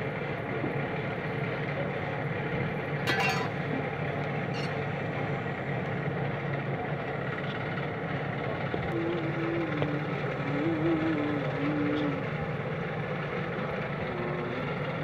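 Forge blower running steadily, a rushing air noise with a low hum as it feeds the coal fire. A brief harsh scrape about three seconds in, and a few short wavering tones in the second half.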